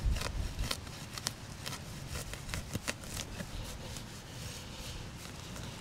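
Soil and small roots crackling and scraping as a freshly dug hole is worked: a run of sharp clicks and rustles that thins out after about three and a half seconds.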